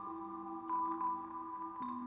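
Marimba notes struck over steady, held electronic sine-wave tones, in a slow ambient texture. Two mallet strikes, about two-thirds of a second in and near the end, each bring in a new pitch against the unchanging tones.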